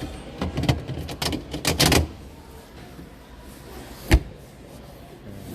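A quick run of clicks and knocks in the first two seconds, then one sharp knock about four seconds in, over a steady low background hum.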